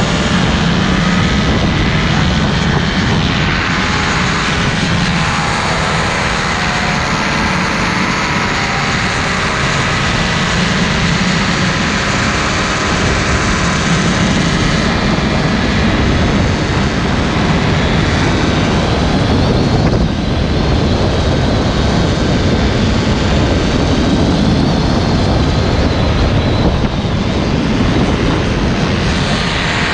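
Paramotor engine and propeller running steadily in flight, heard from a chase camera trailing the pilot, under a heavy rush of wind noise on the microphone.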